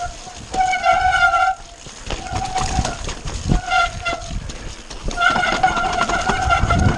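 Mountain bike disc brakes honking in a steady tone, in four stretches of braking, the longest near the end, over the rumble and rattle of tyres on a rough, rocky trail.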